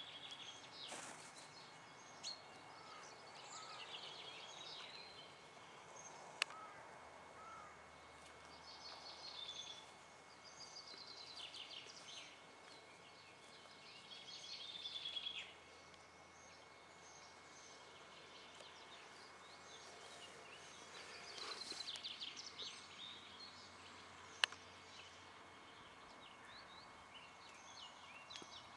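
Faint wild songbirds singing short, fast trilling phrases every few seconds over a steady outdoor hiss, with two sharp clicks.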